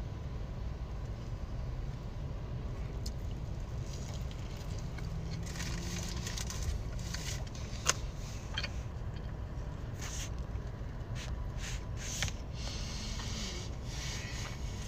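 Close-up chewing of a crispy fried chicken sandwich: irregular crisp crunches starting about four seconds in, with a sharp click near the middle. A steady low rumble from inside the car runs underneath.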